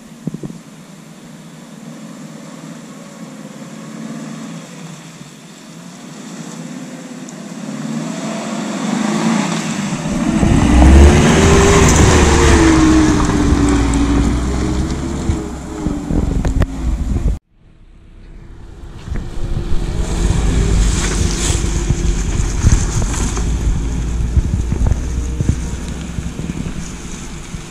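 A 2019 Suzuki Jimny's 1.5-litre four-cylinder petrol engine drives up close and on past. It grows from faint to loud over about ten seconds, its note rising and falling with the revs. The sound cuts off abruptly about two-thirds of the way through, then the engine is heard running steadily again for the rest.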